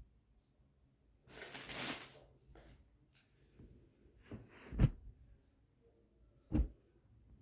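Cloth rustling and swishing as lengths of suit fabric are shaken out and handled, with two dull thumps, the louder one about halfway through and another near the end.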